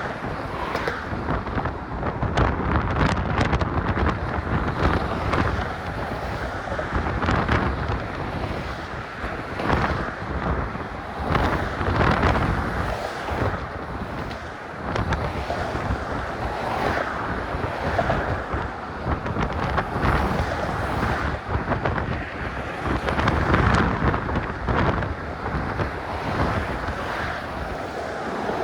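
Strong wind buffeting a phone's microphone: a low rushing noise that swells and eases with the gusts.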